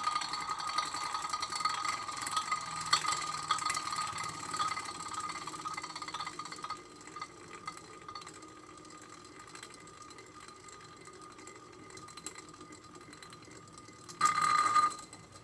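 Wiz-z-z-er spinning top whirring and rattling as it spins on a plate, with a steady high hum. It drops quieter about seven seconds in, and there is a brief louder burst of the same whir near the end.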